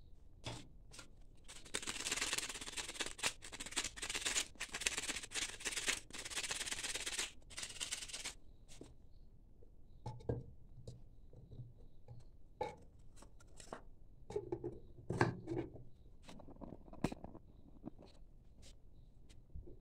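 Quick rasping strokes of abrasive rubbing on a coconut shell for about six seconds, then, after a short pause, a scatter of hollow clacks and scrapes as coconut shell pieces are handled and fitted together.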